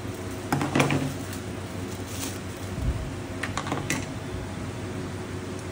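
Light clicks and knocks of small metal parts being handled as a sewing machine's thread stand is fitted, the sharpest about a second in and another cluster near four seconds, over a faint steady low hum.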